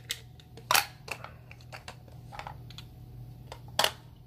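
Clear plastic coin capsules holding silver panda coins clicking against each other and against a plastic coin tube as they are handled and stacked: a handful of sharp clicks, the loudest about three-quarters of a second in and again near the end, over a faint steady hum.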